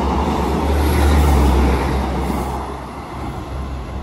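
Pair of coupled Class 156 diesel multiple units passing through a station: a steady low rumble with wheel and rail noise that fades from about two and a half seconds in as the train draws away.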